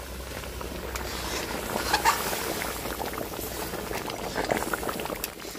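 Thick vegetable curry boiling and bubbling in a large aluminium kadhai, with a metal ladle stirring through it. Many small irregular pops run over a steady bubbling hiss.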